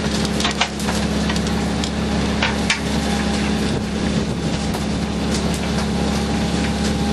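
Fishing boat's engine running steadily with a low hum, with a few sharp knocks on board, the loudest near the middle.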